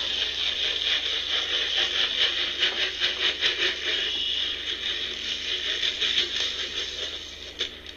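Dry feed pouring from a plastic jug and scattering onto the ground: a dense rattling hiss of many small clicks that eases off near the end.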